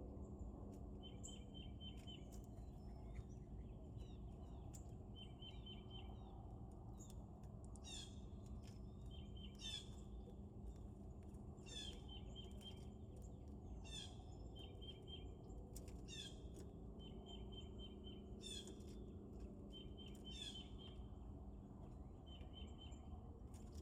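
Wild birds calling: short runs of quick repeated chirps alternate with brief high calls about every two seconds, over a faint steady low hum.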